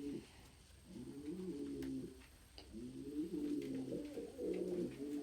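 Domestic pigeons cooing indoors: three low, rolling coo phrases in a row with brief pauses between them.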